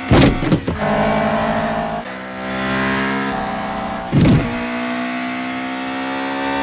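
A Mitsubishi street-race car's engine pulling hard under acceleration, its note slowly climbing in pitch and stepping down about two seconds in as it shifts gear. Two short rushing whooshes come near the start and about four seconds in.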